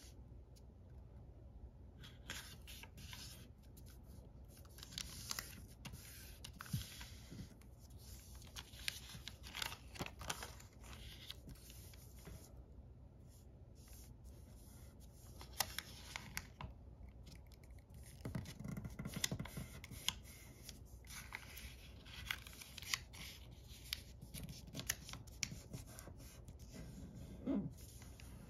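A sheet of origami paper being folded and creased by hand: faint, irregular rustling with short crisp crinkles and taps as fingers press the folds flat, and a busier stretch of handling about two-thirds of the way through.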